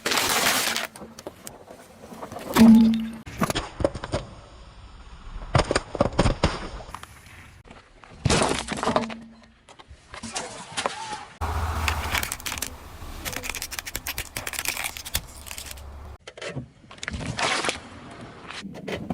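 Objects cracking and crunching as they are crushed under a car's tyre, in a run of short separate clips with abrupt cuts. The loudest crack comes about three seconds in.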